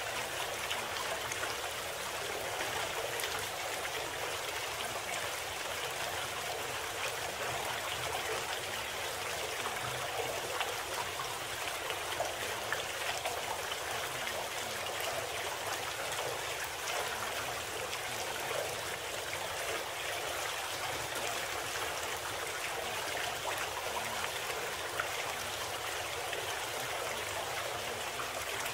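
Running water of a stream, a steady even rush with small splashing flickers and no change throughout, used as the sound bed of a subliminal audio program.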